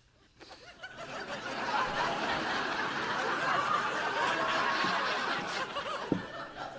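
Sitcom studio audience laughing: the laughter swells up about a second in, holds, and dies down near the end.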